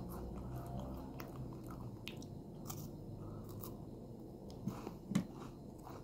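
A person biting and chewing a dark chocolate finger bar, with small crunches and crackles throughout and two louder crunches about five seconds in.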